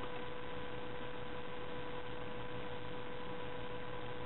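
Steady electrical hum with a constant hiss: a held tone with a fainter higher overtone, unchanging throughout.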